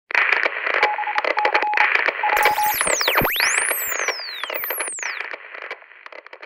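Static sound effect of an old television tuning in: crackling hiss with a broken whistle tone in the first few seconds, then whistles sweeping up and down in pitch through the middle, fading out near the end.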